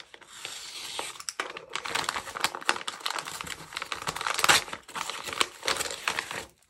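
A mail envelope being torn open by hand, with irregular paper tearing and the crinkling and rustling of its packaging; the loudest rip comes about four and a half seconds in.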